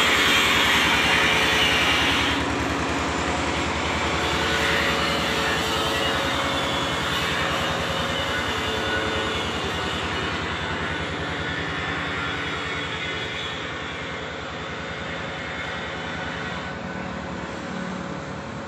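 A heavy engine running steadily with a fast, even beat, growing gradually fainter. A hiss over it stops about two seconds in.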